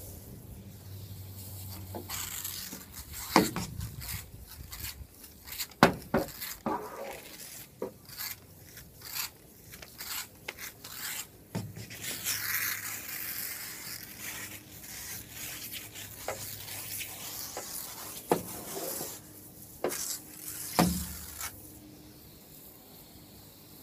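Water-fed pole brush scrubbing a glass door: bristles rubbing on the wet glass, with the hiss of the fan spray jets in the brush washing the dirty water down the pane, and several sharp knocks.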